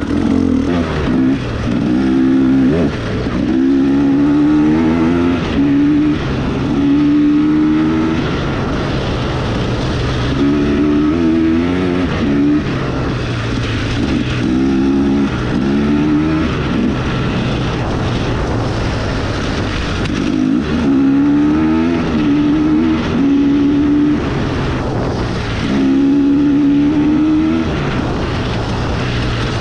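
KTM EXC 250 enduro dirt bike engine being ridden hard, revving up and dropping back again and again: the pitch climbs in short runs and falls off between them, about seven times.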